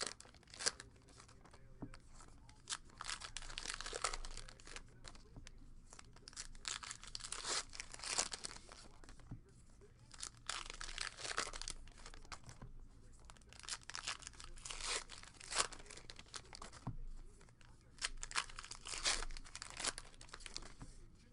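Baseball card pack wrappers being torn open and crinkled, with cards shuffled by hand: a run of irregular ripping and crackling sounds with small clicks, repeating on and off throughout.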